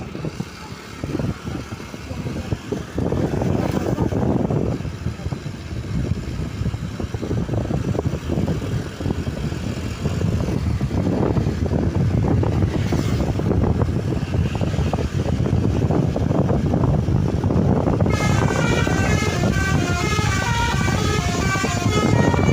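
Bus engine and road noise, then near the end the bus's telolet basuri horn starts up: a multi-tone musical air horn playing a quick up-and-down melody.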